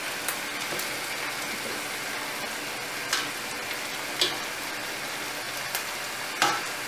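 Batter sizzling steadily in hot oil on the bottom of an aluminium pot as it is spread with a spoon, with a few sharp clicks along the way.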